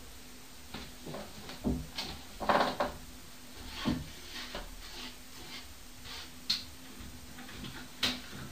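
Scattered light knocks and clicks of household clatter over a faint steady hum, with a louder brief noise about two and a half seconds in and a sharper knock near the end.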